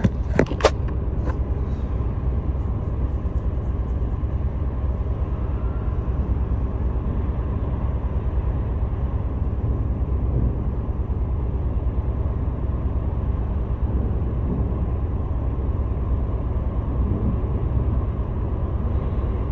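Steady deep rumble of engines and machinery inside a ferry's enclosed vehicle deck, with a few sharp clicks in the first second.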